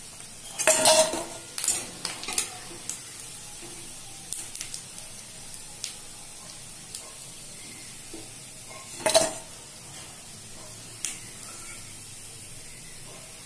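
Steel spatula clanking and scraping against a steel kadai as deep-fried soya-and-pasta fritters are lifted out and drained of oil, over a steady sizzle of hot frying oil. The loudest clanks come about a second in and again about nine seconds in.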